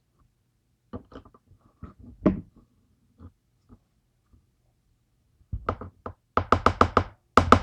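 Lock plug being banged against a hard surface to knock a stuck key pin loose: a few light clicks, then a quick run of sharp knocks, several a second, in the last two seconds.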